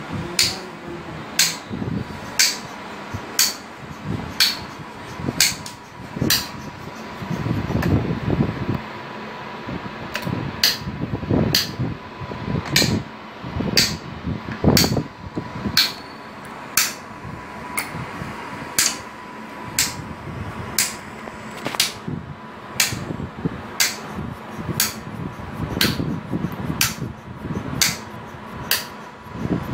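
Graviner OMD Mk5 oil mist detector unit running on test: sharp clicks about once a second over a steady faint tone, with a few dull low rumbles in between.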